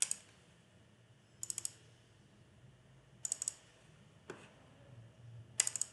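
Computer mouse clicking: a single click, then short quick runs of clicks like double-clicks, with one more single click between them.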